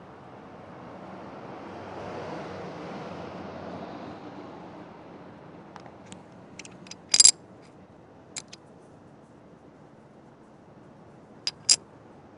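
Sharp, hard clicks, like hard stones knocking on a hard surface, a few faint ones first, then a loud double click around the middle and another near the end. Under them runs a steady background rumble that swells for a couple of seconds early on.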